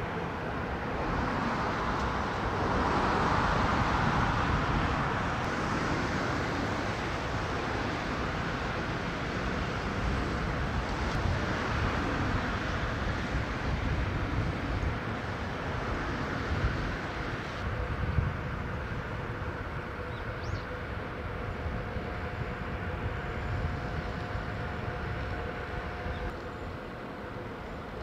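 Steady outdoor industrial ambience of a shipyard: a low rumble and broad hiss that swells for a few seconds near the start. A couple of faint steady tones and a few brief high clinks come in the second half.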